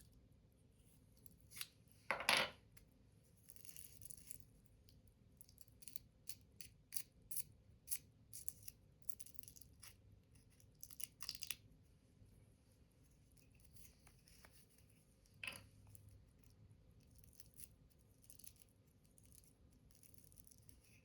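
Paper being handled by hand: scattered small crisp clicks and rustles, with a longer, louder rustle about two seconds in and another about fifteen seconds in.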